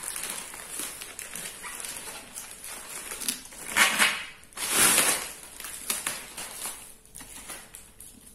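Black plastic courier bag rustling and crinkling as a boxed parcel is pulled out of it, with two louder crinkles about four and five seconds in.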